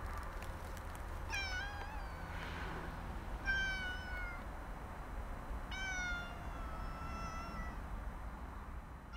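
Domestic cat meowing three times, each call drawn out, the last one the longest.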